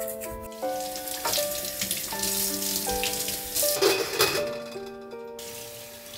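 Water running and splashing in a stainless steel sink as crabs are rinsed under it, cutting off about five seconds in, with a short clatter a little before. Soft background music plays over it.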